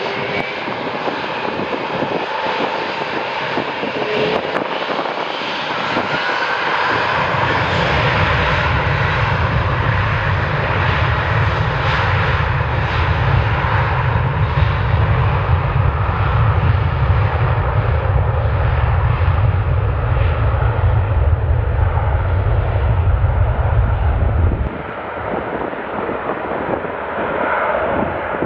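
Airbus A330-300 airliner's jet engines at takeoff power: a loud, sustained roar. A deep low rumble sets in about a quarter of the way through and cuts off abruptly near the end.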